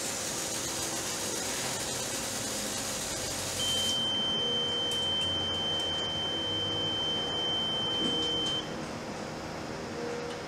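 Aerosol smoke-detector test spray hissing for about four seconds, then the Graviner Mk 6 oil mist detector's alarm sounding as one steady high-pitched tone for about five seconds before cutting off, the sign that the head has sensed the simulated oil mist.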